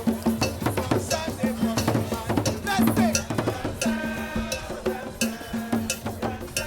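Drum-led music with a steady beat of strikes over a repeating low bass note, and a held higher note about four seconds in.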